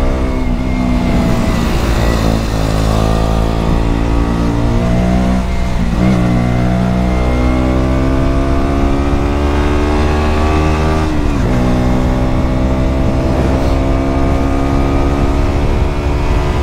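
KTM Duke 125's single-cylinder four-stroke engine through a Mivv GP Pro aftermarket exhaust, pulling under acceleration. The revs climb, then drop sharply twice, about six and eleven seconds in, as it shifts up a gear. Wind rushes over the microphone throughout.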